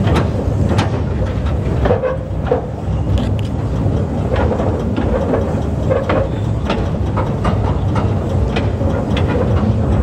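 Narrow-gauge train running along the track, heard from on board: a steady low rumble with irregular clicks and clacks as the wheels pass over the rail joints.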